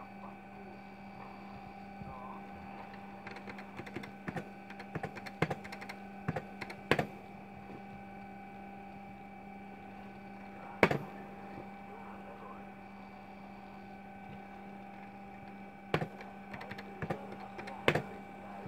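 Key presses on a computer keyboard: a run of clicks a few seconds in, then a few single louder clicks spread out, over the steady hum of the running computer.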